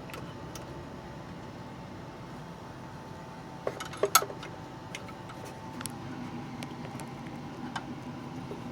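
Small metallic clicks and clinks as a steel key blank is fitted and clamped into the vise of a Silca code key-cutting machine, the loudest few about four seconds in, over a steady faint hum.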